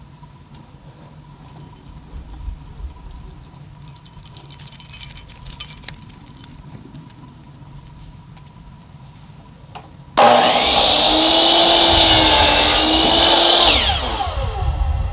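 Electric miter saw started suddenly about two-thirds of the way in, its motor whining as it cuts through a cedar board for about three and a half seconds, then winding down with falling pitch. Light handling knocks and clicks come before it.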